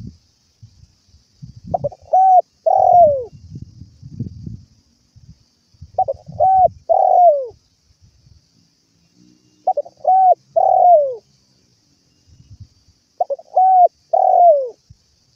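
Spotted dove (tekukur) singing its cooing song: four phrases about four seconds apart, each a couple of short coos followed by a longer coo that falls in pitch.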